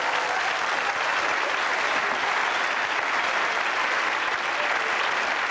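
Studio audience applauding steadily, with some laughter.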